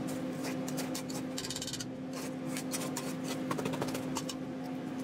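Spatula scraping down the sides of a stainless steel KitchenAid stand-mixer bowl, a run of short irregular scrapes and rubs over a steady low hum.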